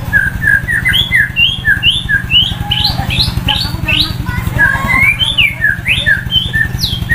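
White-rumped shama (murai batu) singing a fast run of short whistled notes and pitch slides, about three a second, some rising and some falling. Under it runs the steady low drone of an idling engine.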